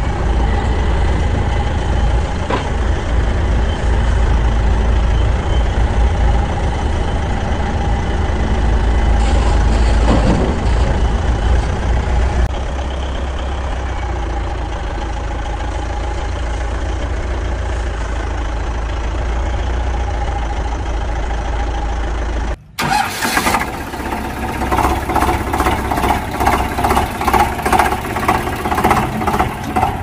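Engine running steadily with a deep low rumble, matched to toy construction vehicles. About 23 seconds in, after a brief dip, a different engine sound takes over, chugging in a quick even rhythm.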